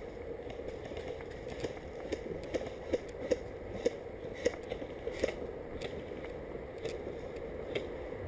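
Footsteps crunching on dry leaves and twigs, about two steps a second, over a low steady background noise.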